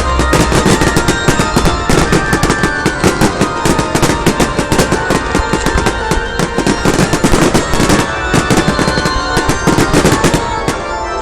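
Fireworks going off in a dense, rapid barrage of bangs and crackles, several a second, with music playing underneath; the barrage thins out near the end.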